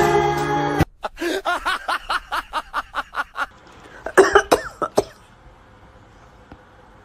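Background music cuts off under a second in. Then a small white dog close to the camera makes a quick run of short yelping calls, about five a second for a couple of seconds, and a louder cluster of a few more about four seconds in.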